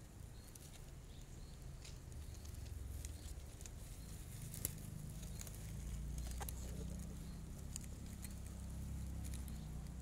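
Low rumble of wind on the microphone, a little louder in the second half, with scattered faint clicks and one sharp click about halfway through.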